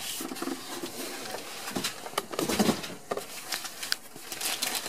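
Packaging being handled: cardboard box, white foam end caps and plastic wrap rustling and scraping as an oscilloscope is lifted out of its box, with scattered small knocks and a louder bump about two and a half seconds in.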